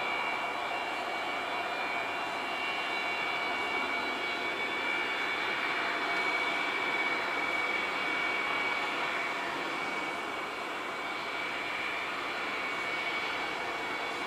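Antonov An-124's four Progress D-18T turbofan engines running, a steady rushing noise with a high, even whine over it.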